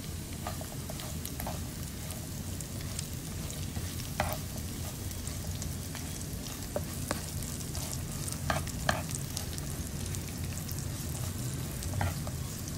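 Pork belly, garlic and onion sizzling in hot oil in a nonstick frying pan, with scattered clicks and scrapes as a spatula stirs them.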